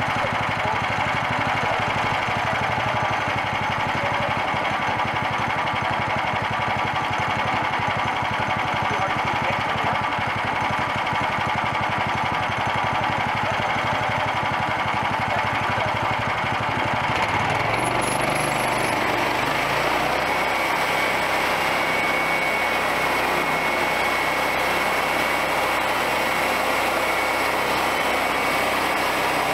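Engine of a homemade bandsaw sawmill running steadily; its sound changes about two-thirds of the way through.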